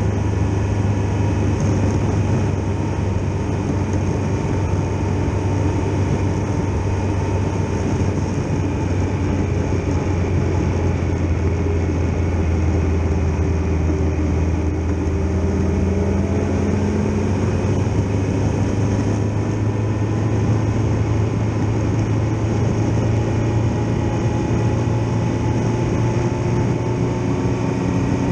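Triumph Tiger Explorer XRx motorcycle's three-cylinder engine running steadily at road speed, heard together with riding noise from an on-bike camera. The engine note drifts slowly up and down in pitch as the speed changes.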